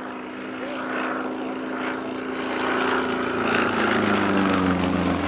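Sukhoi Su-31's nine-cylinder radial engine and propeller in a flyby, growing steadily louder as the plane approaches. The pitch falls in the last couple of seconds as it passes.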